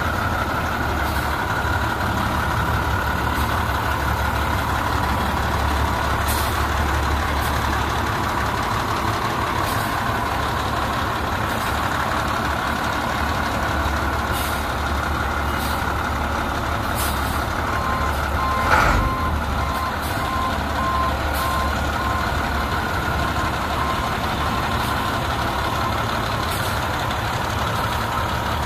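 International DT466E six-cylinder diesel in a 2000 International 4700 dump truck idling steadily. About two-thirds of the way through, a backup alarm starts beeping in an even on-off pattern for several seconds. A single sharp knock sounds just after the beeping begins.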